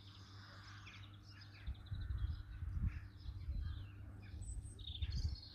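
Small birds chirping and calling in the background, with gusts of wind rumbling on the microphone about two seconds in and again near the end.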